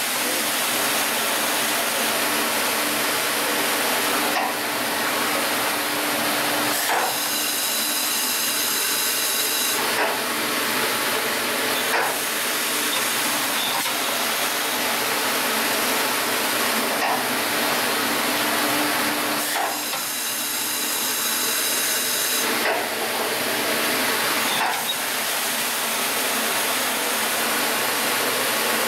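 Aquamaster RI-5400 rotary indexing parts washer running: a steady hiss of its wash spray and air jets on aluminum brake master cylinders. Twice, for about three seconds each, a high whistling tone rises over the hiss, and there are a few light clicks.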